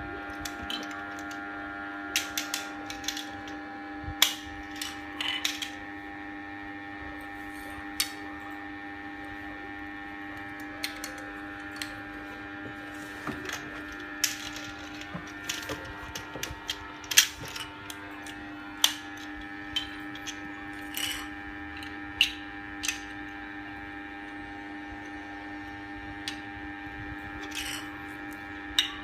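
Plastic Lego Duplo bricks and pieces clicking and clacking on a tiled floor as they are handled and pressed together, in irregular sharp clicks, over a steady hum.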